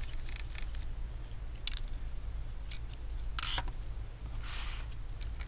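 Scattered small clicks and a few brief scrapes of a laptop motherboard being unscrewed and lifted out of its plastic case by gloved hands, over a steady low hum.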